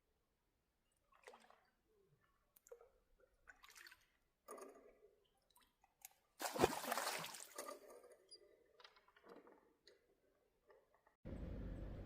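Water splashing and dripping in short separate bursts, the biggest splash lasting over a second about six and a half seconds in. A steady low hum starts near the end.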